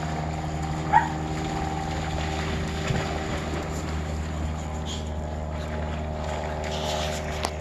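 Steady machine hum made of several even tones, with dogs splashing through shallow water over it; a brief high squeak about a second in and a short sharp splash or knock near the end.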